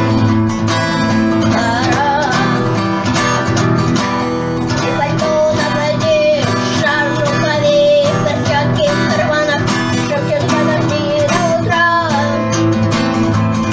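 Music: an acoustic guitar strummed, with a melody line over it.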